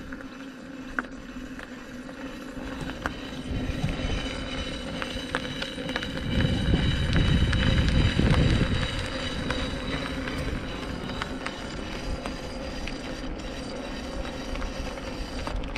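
InMotion V10F electric unicycle running along asphalt: its hub motor gives a steady whine, with irregular small ticks from a pebble caught between the shell and the motor. A louder low rumble comes about six to nine seconds in.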